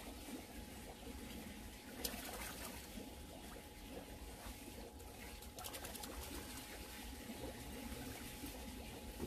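Faint, steady trickling of water in an indoor fishing pond, with a thin steady hum and a few small clicks.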